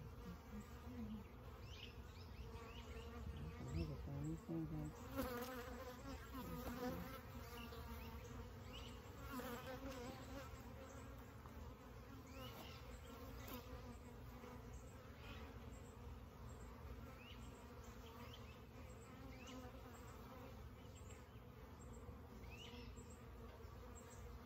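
A mass of honeybees from a bee package buzzing together in a steady, faint hum.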